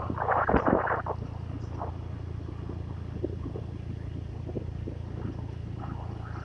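A vehicle's engine and road noise drone steadily and low while it drives along. A loud burst of rough noise fills about the first second.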